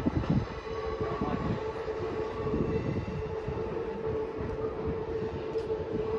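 Electric train running, a steady hum with a held tone over a low rumble that is heaviest in the first second or so.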